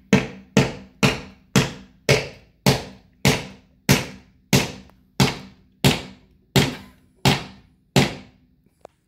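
Claw hammer driving a nail into a wooden kit piece: about fourteen steady, evenly spaced strikes, roughly one and a half a second and slowing slightly toward the end, each with a short ring.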